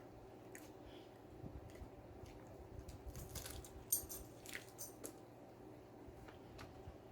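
Eating sounds from a person chewing taco: scattered crisp crunches and clicks over a low background, the sharpest about four seconds in.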